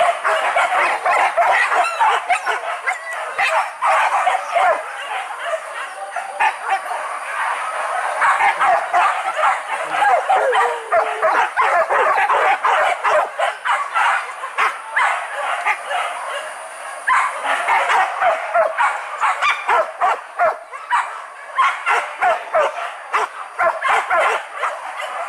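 A pack of boar-hunting dogs barking and yelping together without a break, many voices overlapping.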